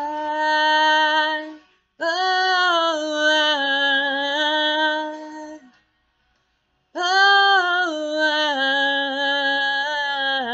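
A woman's solo voice singing unaccompanied: long held notes with a slight waver, one ending just after the start, another lasting about four seconds, and a third beginning about seven seconds in after a short pause.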